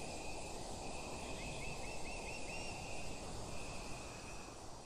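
Tropical forest ambience: a steady high insect trill that breaks off briefly now and then, over a soft even rush, with a few quick bird chirps about two seconds in. It begins to fade near the end.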